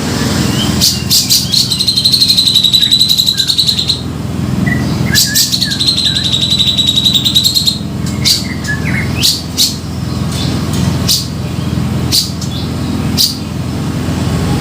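Grey-cheeked bulbul (cucak jenggot) calling in loud, busy song: sharp short call notes, with two long, fast, buzzy trills of about two seconds each, one early and one midway. A steady low hum runs underneath.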